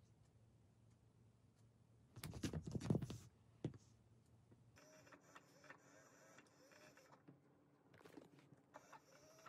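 A short scuffle about two seconds in: cats swatting at each other on a fabric sofa cushion, soft thumps and rustling that last about a second. In the second half a faint steady mechanical whir.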